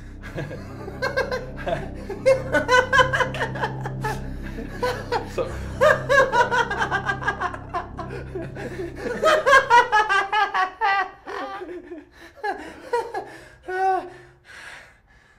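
A man laughing in several long runs of quick pulses, thinning out toward the end.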